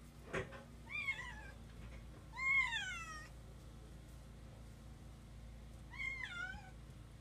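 A cat meowing three times: about a second in, around two and a half seconds in, and near the end. The middle meow is the longest and loudest. A short knock comes just before the first meow.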